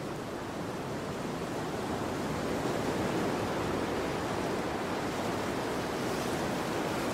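Steady rushing noise with no distinct pitch or rhythm, swelling slightly in the first couple of seconds.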